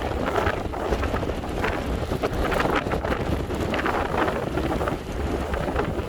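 Strong wind buffeting the microphone with a deep, steady rumble, over sea waves surging and breaking against a breakwater.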